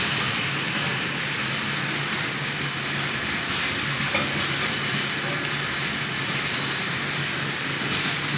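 Automatic drinking-straw counting and wrapping machine running: a steady hiss with a low hum beneath and no distinct rhythm.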